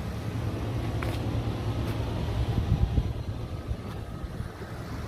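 Volvo VNL semi-truck's diesel engine idling steadily.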